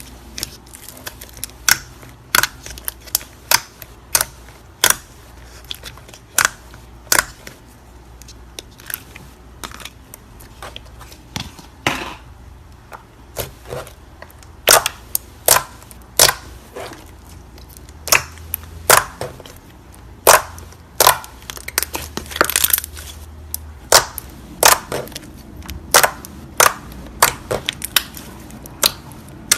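Slime being worked by hand, giving a string of sharp, irregular pops and clicks, about one or two a second.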